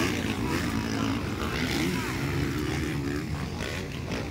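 Several motocross dirt bikes racing around the track, their engines revving up and down with wavering pitch as riders take the jumps.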